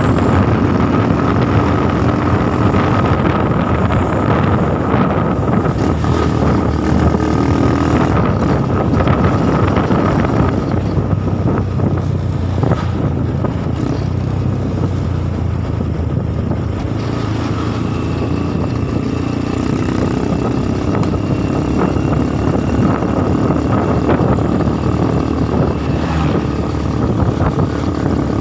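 Steady engine and road noise from travelling close behind a mountain bus, with a steady whine throughout and a second, higher whine for several seconds past the middle.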